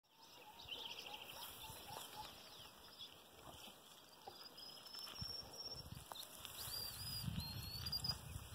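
Wild birds calling in open country: a short rapid trill repeated a few times, then whistled notes that slide up and down. Low rumbling near the end.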